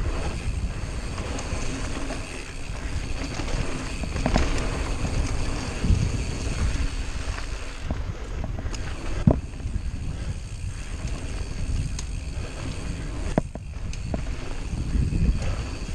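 Mountain bike riding fast down a dirt trail: steady wind buffeting on the microphone and tyres rolling over the dirt, broken by several sharp clacks from the bike as it hits bumps.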